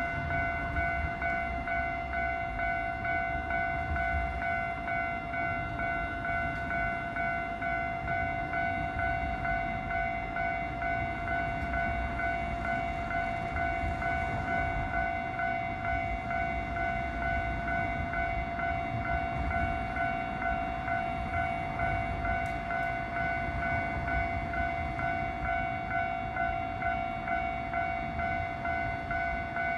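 Japanese railway level-crossing warning bell ringing steadily, a bright electronic ding repeated in an even, quick rhythm, over a low background rumble.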